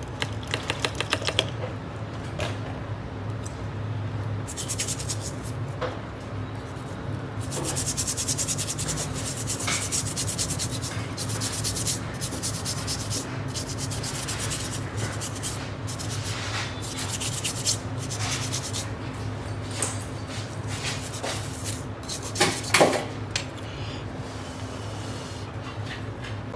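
Rapid, fine scraping strokes of a small hand tool on an iPhone 13 circuit board, in long runs with short breaks, over a steady low hum. A couple of sharper knocks come near the end.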